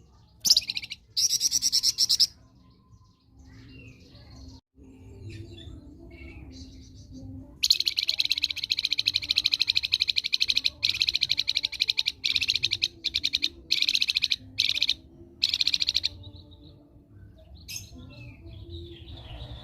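A 'flamboyan' songbird singing in long, very fast rattling trills of repeated high notes, broken into bursts of a second to three seconds, with softer scattered notes in the pauses.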